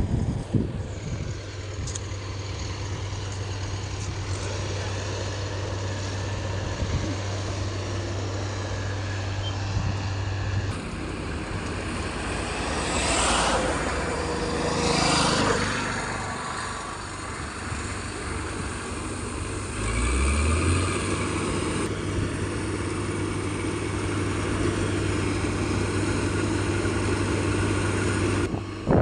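Rice combine harvester's engine running steadily, with a louder rushing swell about halfway through and a few abrupt changes in the sound.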